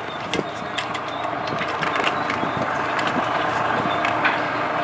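Steady running of a small boat's outboard motor at idle, with a few light knocks in the first second.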